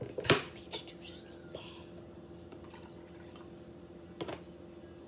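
Sharp clicks and ticks of a plastic bottle's screw cap being twisted and handled. The loudest click comes about a third of a second in, a few lighter ones follow, and there is a double click near the end, over a steady low hum.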